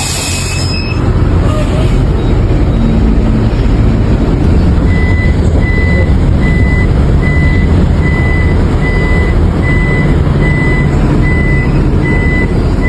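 Refrigerated truck running with a loud, steady low rumble, a brief hiss right at the start. About five seconds in, a reversing beeper starts, beeping about twice a second.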